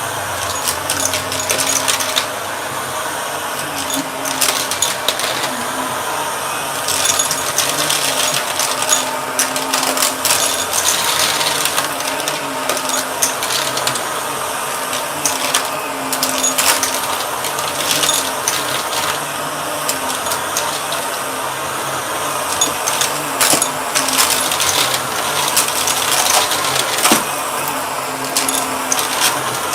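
Purple Shark vacuum cleaner running, its motor sound shifting every couple of seconds as it moves, with scattered clicks and rattles of debris being picked up.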